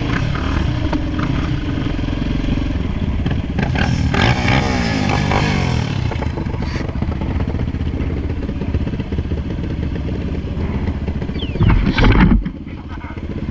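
ATV engine running on the trail, revving up and down a few seconds in, with a loud burst near the end before it drops back.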